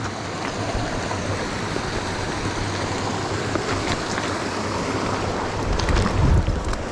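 Mountain stream water rushing steadily over rocks. A low rumble swells briefly near the end.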